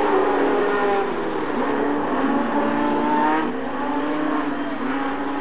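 Several stock car engines running hard on a dirt oval together, their notes overlapping and sliding up and down in pitch as the cars rev and back off.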